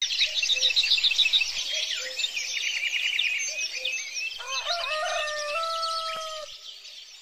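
Small birds chirping busily, with a rooster crowing once about halfway through: a call that climbs and then holds a long note. The sounds fade out near the end, a dawn ambience.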